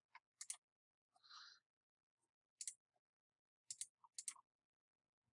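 Faint computer mouse clicks, a few scattered single and paired clicks, over near silence, with one soft short hiss about a second in.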